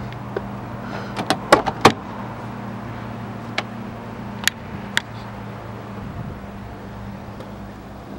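The 1986 Opel Manta GTE's four-cylinder engine idling with a steady low hum. A cluster of sharp clicks comes a little after a second in, and two more around four and a half and five seconds.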